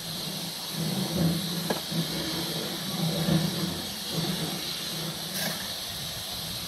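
Steam locomotive hissing steadily, with a low hum that comes and goes. A couple of sharp scrapes or clinks come from a shovel as char is cleared from the open smokebox.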